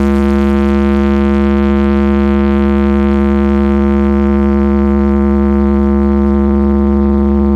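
A huge carnival loudspeaker stack blasting one sustained electronic drone note, held steady and unbroken, with a deep bass hum underneath.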